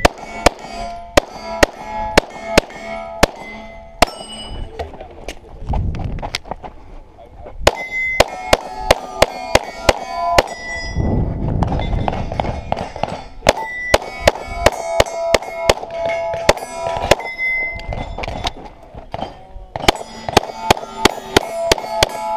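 Handgun shots fired in several rapid strings at steel plate targets, each hit followed by the bright ringing clang of the steel. Short pauses between the strings carry low rumbling noise as the shooter moves to the next position.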